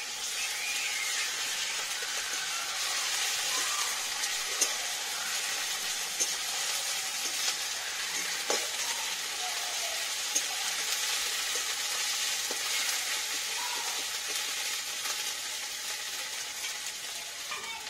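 Food sizzling steadily in hot oil in a steel kadai, with a metal spatula scraping and stirring through it and a few sharp clicks where it knocks the pan.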